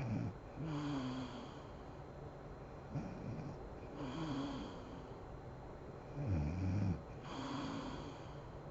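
A sleeping woman snoring: about five snores, one every second or two, the deepest and loudest about six seconds in.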